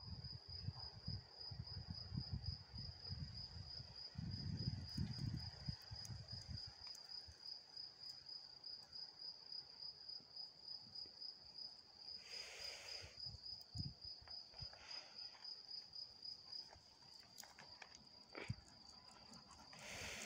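Insects chirping in a faint, steady, high pulsing trill, with low rumbles during the first six seconds.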